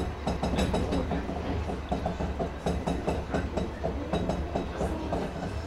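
Wengernalpbahn rack-railway train heard from on board, running steadily: a low rumble of wheels and motors with rapid, irregular clicking and clacking from the track.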